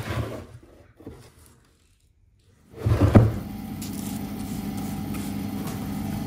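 A hawthorn burl slab is knocked and slid about on a metal bandsaw table. After a brief hush, a bandsaw starts with a thump about three seconds in and then runs with a steady hum.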